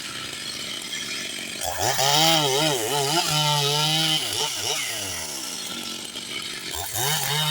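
Large two-stroke Stihl chainsaw cutting, its engine pitch wavering up and down as the chain bites into the wood. It gets louder about a second and a half in, drops back around the middle, and rises again near the end.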